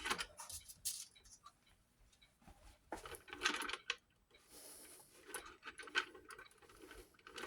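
Faint clicks, rattles and rustling from hands working on a weight-driven wall clock movement and its chains, loudest in a cluster of quick clicks about three seconds in.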